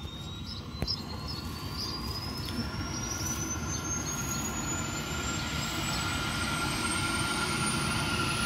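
Air ambulance helicopter's turbine engines winding up: a whine slowly rising in pitch and a steady higher tone over a low rumble that grows gradually louder.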